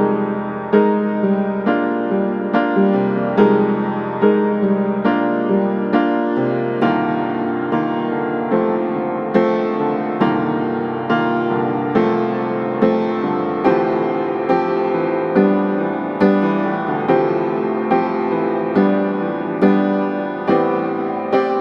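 Background piano music, a slow, gentle piece with chords struck roughly once a second.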